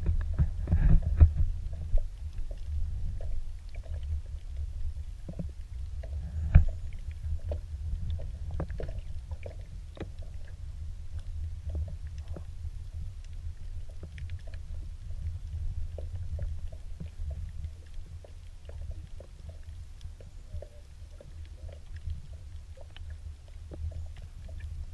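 Muffled underwater rumble picked up by a camera held below the surface, with scattered faint clicks and crackles and one louder knock about six seconds in.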